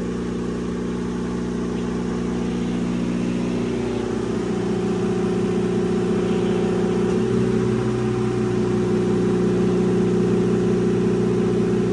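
Diesel standby generator set running steadily under test, a constant engine drone whose tone shifts slightly about four seconds in and again about seven seconds in, growing a little louder toward the end.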